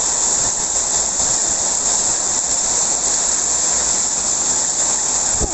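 Hailstorm: heavy rain and hailstones falling, heard as a loud, steady hiss.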